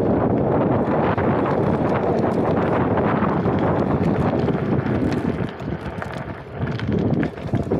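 Wind buffeting the microphone, a loud, steady rumble that eases for a moment about two-thirds of the way through, with a few faint clicks.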